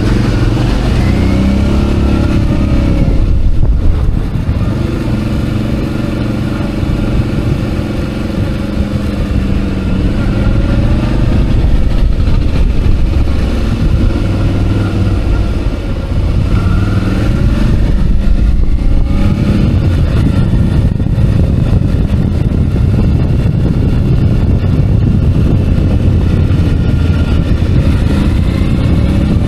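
Suzuki DL650 V-Strom's 645 cc V-twin engine running under way, its pitch rising and falling several times as the bike accelerates and eases off.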